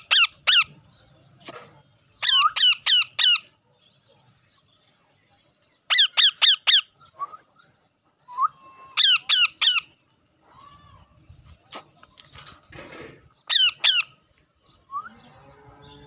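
Green ringneck parakeet screeching: short, harsh, downward-sweeping calls in quick runs of three to five, repeated five times with a few seconds' pause between runs.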